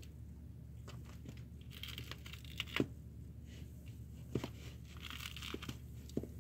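Kittens scrambling and play-fighting, their claws scratching and rustling on a cardboard box floor, a plush pet bed and a towel: faint scattered ticks and scratchy rustles, busiest about two seconds in and again around five seconds, over a steady low hum.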